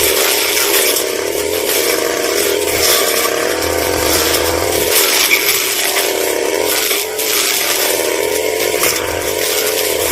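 Brush cutter engine running at high revs as its blade cuts through grass and scattered palm fronds, the pitch wavering as the load comes and goes, with a brief dip about seven seconds in.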